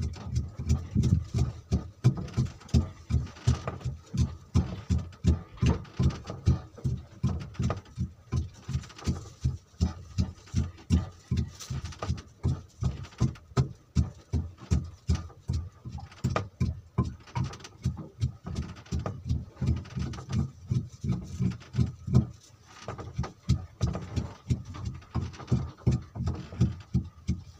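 A small boat engine running slowly, giving an even low thumping of about three beats a second, with a short drop a little over twenty seconds in.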